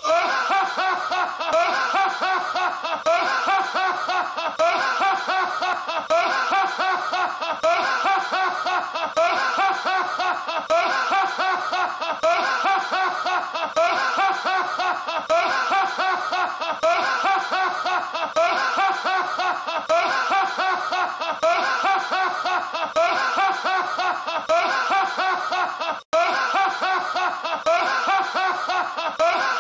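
A man's loud, hearty laughter going on and on in short repeating bursts, looped from a film scene. It drops out for an instant about 26 seconds in, at a loop seam.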